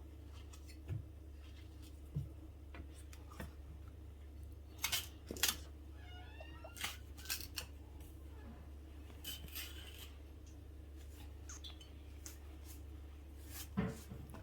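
Scattered light clicks, taps and clatters of kitchen utensils and dishes being handled, over a steady low hum, with a short squeak about six seconds in.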